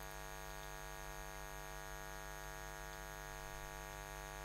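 Steady electrical mains hum with a stack of buzzing overtones, unchanging throughout, with a faint hiss behind it.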